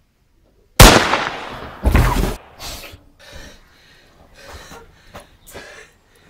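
A sudden loud bang that fades slowly, followed about a second later by a second heavy burst, then softer scattered rustling as a blanket is pushed about.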